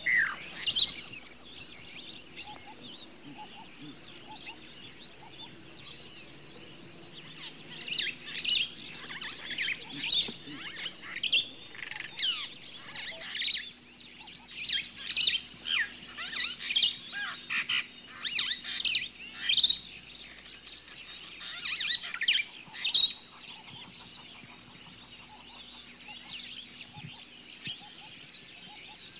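Birdsong: many short, quick, falling chirps from several birds, busiest through the middle, over a steady high-pitched background trill.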